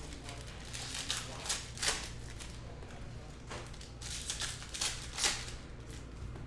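Foil trading-card pack wrapper crinkling and cards being handled, a string of short, crackly rustles and clicks.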